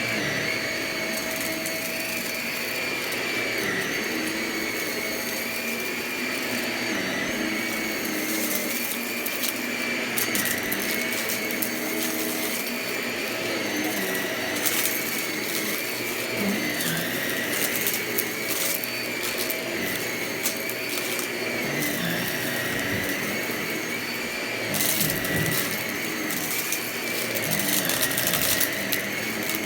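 Vacuum cleaner running steadily, its motor whine wavering slightly in pitch, with bursts of sharp crackling and clicking as it sucks up crunchy debris, the heaviest near the end.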